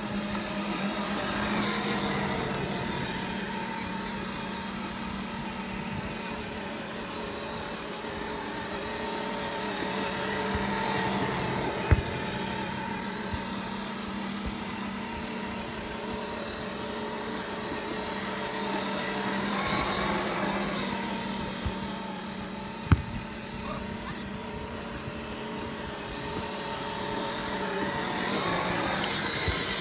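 A steady motor hum that swells and fades every eight or nine seconds, with two sharp smacks of a volleyball being hit about eleven seconds apart.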